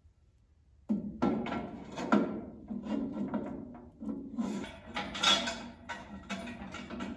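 Irregular knocking and clattering of sawmill frame parts being handled and fitted, starting suddenly about a second in.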